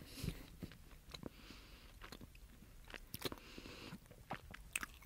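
A person chewing a mouthful of toast topped with a homemade vegan cheese spread: faint, irregular small clicks as the bite is worked in the mouth.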